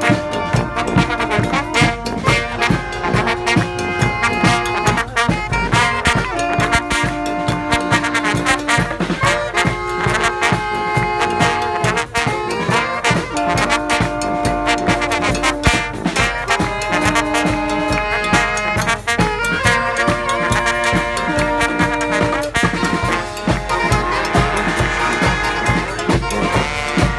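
Street brass band playing live: trombones, trumpets and saxophones holding and moving between notes over a drum beat.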